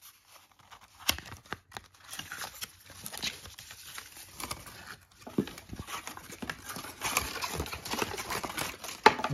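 Paper and cardboard packaging rustling and scraping as a coiled braided power cable is pulled out of its sleeve, with scattered taps and knocks; a sharp knock about a second in and another near the end.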